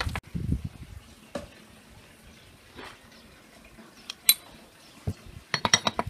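Metal utensils and dishes clinking during food preparation: a few scattered clicks, one bright ringing clink about four seconds in, then a quick run of clinks near the end.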